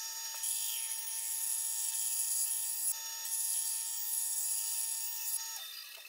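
Bandsaw running and cutting a bird shape out of thin plywood: a steady whine with the hiss of the blade in the wood, fading near the end.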